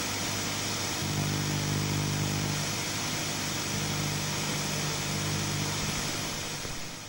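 Motorcycle engine running steadily under a constant hiss, fading out near the end.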